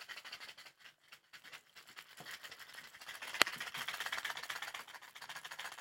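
Rapid, continuous rattling and clicking as packaged shad fishing lures are shaken like rattles, with one sharper click about three and a half seconds in.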